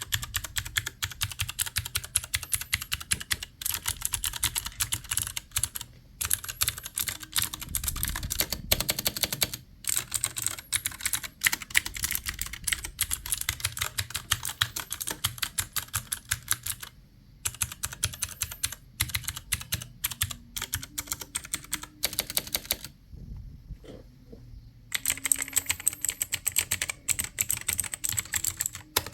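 Computer keyboard being typed on rapidly, a dense stream of key clicks, pausing briefly past the middle and again for a couple of seconds near the end before resuming.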